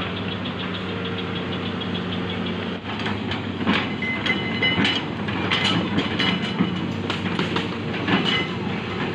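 Hitachi ZX200 hydraulic excavator's diesel engine running steadily. From about a third of the way in come about a dozen short metallic clanks and squeaks from the working machine.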